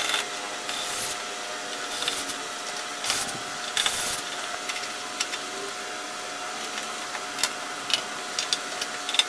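Heat-shield bolts being tightened with a hand ratchet: short bursts of metallic clicking about once a second for the first few seconds, then lighter scattered ticks, over a steady faint hum.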